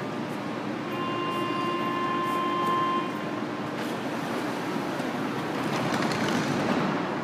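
Athens Metro Line 3 train starting to pull out of the station. A steady tone is held for about two seconds, then the rumble and rail noise of the moving cars build and are loudest near the end.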